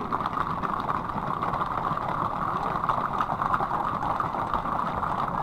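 A large herd of horses moving along a paved road, their many hooves striking the asphalt and blending into one steady clatter with no single beat standing out.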